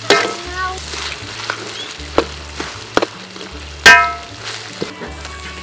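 Stir-frying in a metal wok: food sizzling in hot oil while a metal spatula scrapes and knocks against the pan. Several sharp clangs ring out, the loudest about four seconds in.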